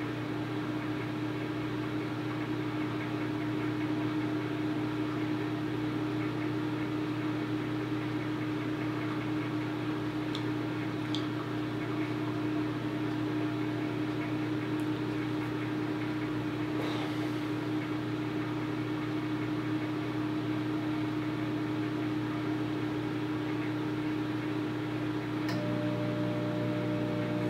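Microwave oven running with a steady hum while it cooks a bowl of oats. A few faint ticks come around the middle, and a second, higher tone joins near the end.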